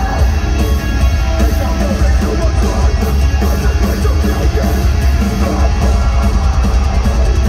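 Heavy metal band playing live in an arena, with loud guitars and drums over a constant heavy low end.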